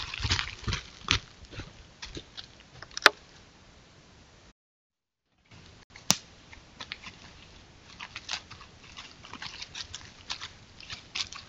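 Animal footsteps crunching and rustling through dry fallen leaves: first a deer walking close by, then a smaller animal shuffling and foraging through the leaf litter. Two sharp clicks, the loudest sounds, come about three and six seconds in, and the sound cuts out for about a second in between.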